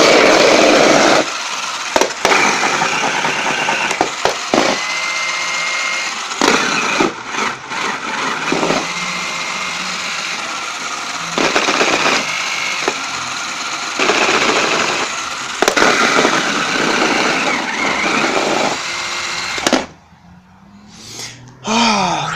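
Flytec amphibious RC stunt car's small plastic-geared electric drive motors running, a loud whirring rattle with short dips. It is loudest in the first second and stops sharply shortly before the end.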